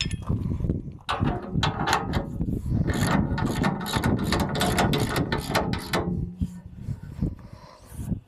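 Hand socket ratchet clicking rapidly in quick runs as a nut is run down on one of the bolts holding a steel tooth bar to a loader bucket. The clicking eases off about two seconds before the end.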